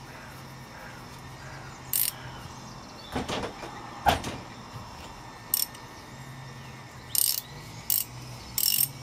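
Ratchet wrench with a socket tightening the diesel fuel filter cap: short bursts of ratchet clicking, with a couple of louder knocks from the tool and cap near the middle.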